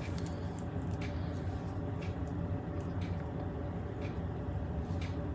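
Steady low hum with a few faint, scattered clicks of steel pliers being handled.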